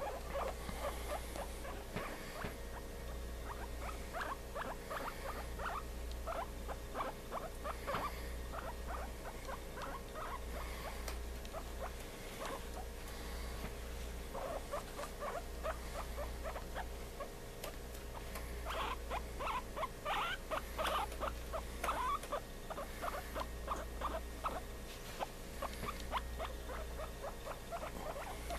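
A rat scrabbling about on a surface: runs of rapid small clicks and scratches, busiest about two-thirds of the way through, over a steady low hum.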